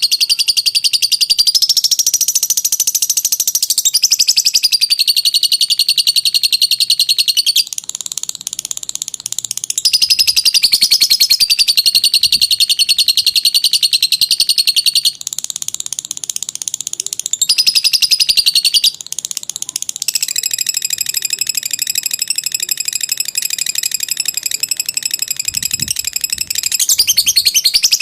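Lovebird singing its long 'ngekek' song: a fast, high-pitched, unbroken chatter that runs on without a pause and shifts in pitch and loudness every few seconds.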